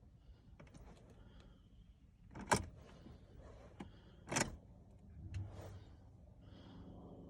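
Two sharp clunks about two seconds apart, then near the end a steady mechanical hum sets in as the Ford S-Max's 1.8 TDCi diesel is turned over on a start attempt; the engine is reluctant to start.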